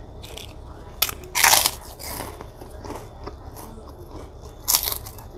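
Crisp crunching bites into fried krupuk crackers while eating: a few short, sharp crunches, the loudest about one and a half seconds in and another near the end.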